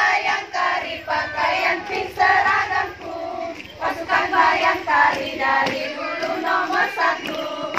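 A group of women's voices singing a song together, phrase after phrase with short breaks between.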